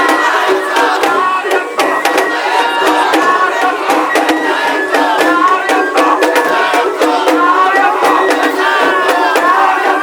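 Japanese festival float procession: a crowd of pullers shouting and chanting together over festival music with frequent drum strikes, as the float is hauled up a slope.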